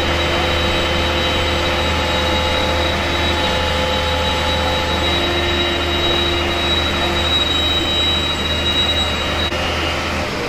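Steady, loud machinery drone with a deep hum and constant high whining tones, cutting off abruptly near the end.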